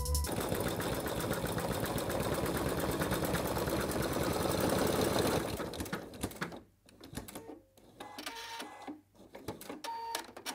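Sewing machine stitching at speed, its needle going up and down in a fast, even rattle. After about five and a half seconds it drops to quieter stop-start stitching.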